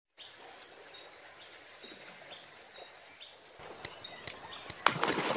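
Riverside ambience: a steady high drone of insects with scattered short chirps. Near the end comes a sudden louder rush of noise.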